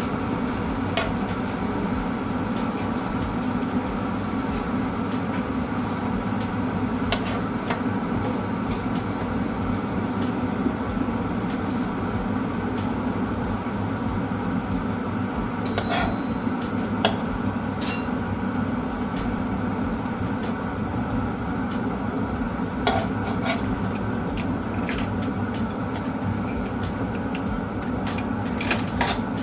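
A steady, even rushing noise that starts abruptly, with scattered light clinks of a utensil against cookware.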